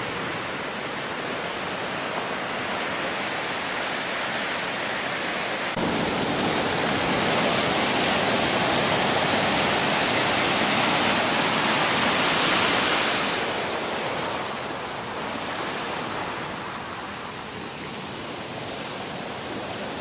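Ocean surf breaking and foamy water washing up over sand and rocks, a steady rush. It grows suddenly louder about six seconds in and eases off in the last several seconds.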